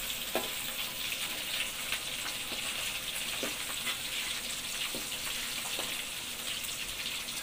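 Empal (boiled beef) pieces frying in hot oil in a wok, a steady sizzle. A few light clicks of a metal slotted spatula against the wok.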